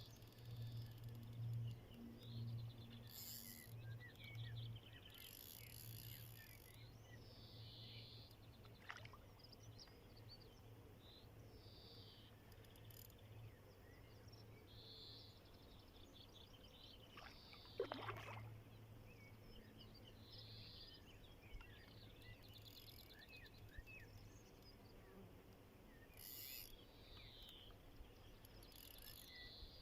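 Faint outdoor ambience with scattered chirps and short songs from several birds over a low, steady hum. About eighteen seconds in, a single call sweeps downward.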